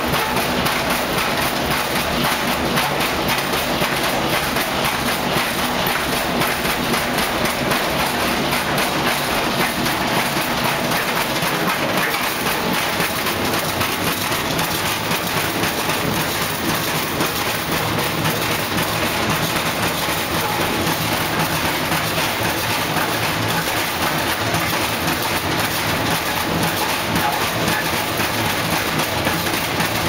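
Coin-operated top-loading washing machine running out of balance, banging and rattling in a fast, continuous clatter over a low motor hum as the cabinet shakes and walks across the floor.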